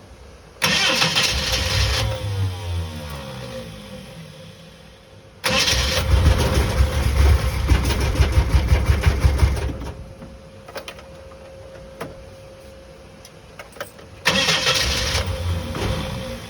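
Bedford CF van's engine being cranked by the starter three times without catching, each attempt cutting off; the longest, in the middle, churns with a rapid even pulse. After the first attempt the whirr winds down in falling pitch. The engine won't start.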